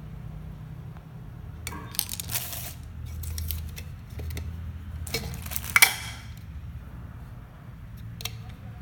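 Hard plastic parts of a mini chopper (whisk attachment, lid and clear bowl) clattering and knocking together as they are handled. The clatter comes in two short bunches, about two seconds in and again around five to six seconds, with one more click near the end, over a steady low hum.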